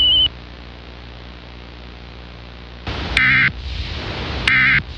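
Emergency Alert System end-of-message data bursts: two short warbling bursts of digital data tones about a second and a half apart, starting about three seconds in, over steady tape hiss. A wavering high tone cuts off just after the start.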